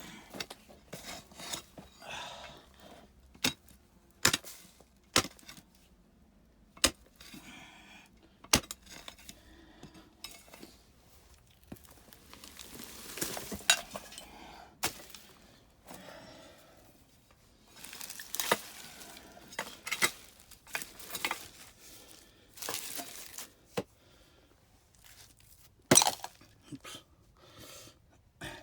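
Rubble and debris being pushed and scraped across the shelter floor, with irregular sharp knocks and clinks of hard objects such as glass and stone.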